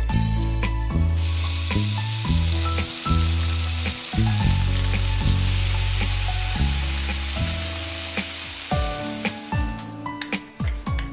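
Breaded fish pieces deep-frying in hot oil, a steady sizzle that begins about a second in and dies away near the end.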